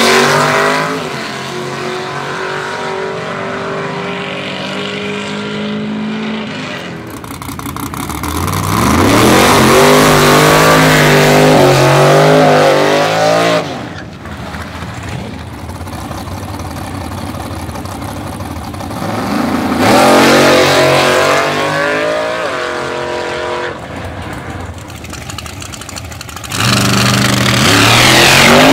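Drag race car engines at the strip: several full-throttle runs, each with the engine note climbing as the car accelerates, cut together with quieter stretches of engine running in between.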